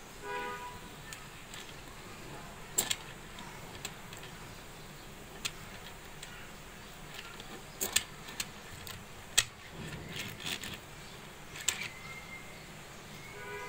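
Hot Wheels Aero Pod die-cast toy car handled and pushed on a tabletop: scattered sharp clicks and taps of the toy and its wheels against the surface, with a faint rolling rumble about ten seconds in. A short pitched tone sounds just after the start and again near the end.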